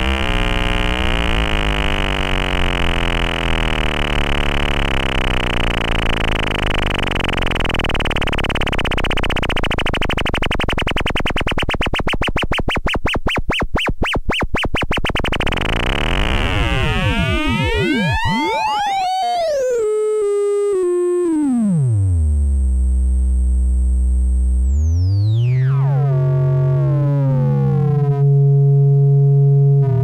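Erica Synths SYNTRX analog oscillators sounding raw, first as a dense, buzzy drone that beats faster and faster. About halfway through the pitches slide downward as the frequency knobs are turned: a high whistle holds, then drops steeply, and near the end a low tone climbs and holds.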